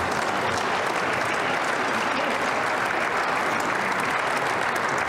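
Steady applause from members of parliament clapping in the chamber.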